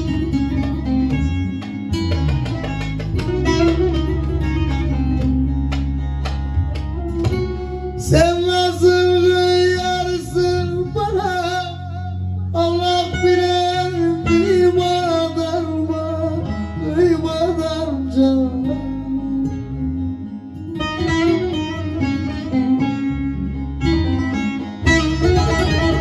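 Turkish folk song played live on a plucked bağlama (saz) over a steady bass backing, with a male voice singing the melody from about a third of the way in until about three quarters through, then the saz carrying on alone.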